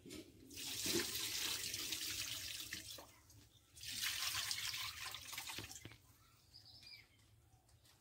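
Water poured from a steel bowl onto pieces of raw meat in a bowl, splashing: the meat being rinsed. It comes in two pours of a few seconds each and stops about six seconds in.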